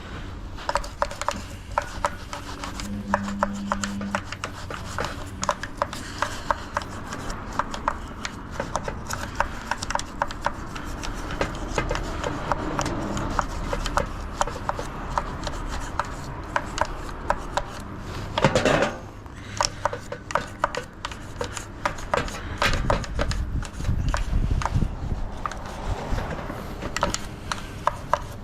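Hands working on washing machine parts during disassembly: a long run of irregular clicks, knocks and rubbing or scraping, with a short louder rush about eighteen seconds in.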